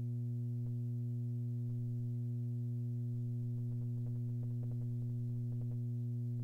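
Steady low electrical hum with a stack of overtones, with faint scattered clicks in the second half.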